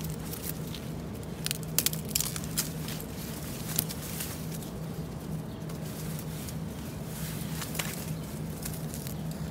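Dry bamboo stems, twigs and fallen leaves crackling and snapping as a gloved hand pushes through a dense bamboo clump, with a cluster of sharp cracks about two seconds in and single cracks later, over a low steady hum.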